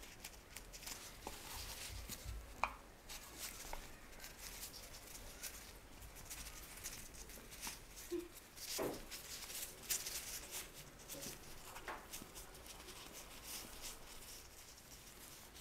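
Soft, irregular rustling and small taps of gloved hands lifting, folding and laying strips of raw pie dough into a woven lattice over an aluminium mold, with a few sharper ticks now and then.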